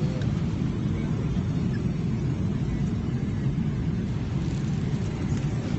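Steady airliner cabin noise in flight: an even low rumble that does not change.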